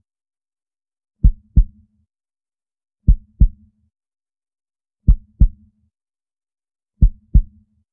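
Heartbeat sound effect: four slow double thumps, lub-dub, about two seconds apart with silence between.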